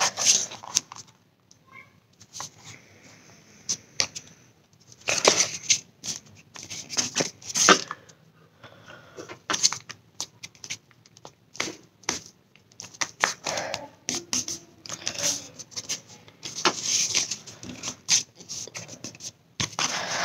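A sheet of paper being handled and folded by hand: rustling and crinkling with sharp creasing clicks, in irregular bursts separated by short pauses.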